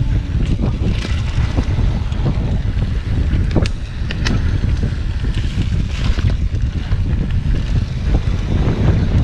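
Wind buffeting the microphone as a mountain bike is ridden fast down a dirt trail. Tyre and trail noise runs underneath, and a couple of sharp clicks or rattles from the bike come a little before the middle.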